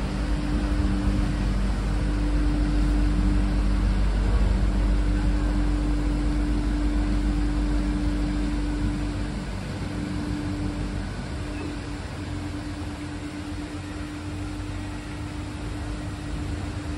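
Canal lock working: a steady low rumble of water moving through the lock under a mechanical hum, the rumble easing about halfway through as the lock gates start to swing open.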